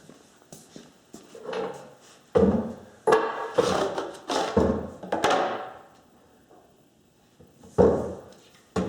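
Knocks and clunks of an Echo CS-400 chainsaw being handled and set down on a workbench. There is a cluster of hard knocks from about two and a half to five and a half seconds in, and two more near the end.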